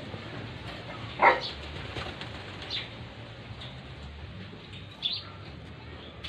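Racing pigeons in a loft: a brief, loud flutter of wings about a second in, with smaller sharp sounds near three and five seconds over a steady low background.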